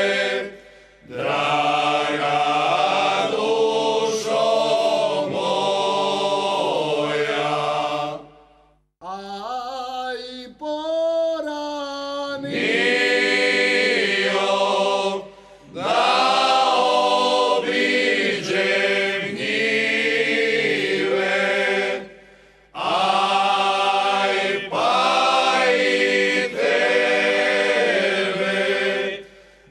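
A group of men singing a Slavonian folk song unaccompanied, in several long phrases with short breaths between them. About nine seconds in, a single voice leads off a new phrase more quietly before the whole group comes back in.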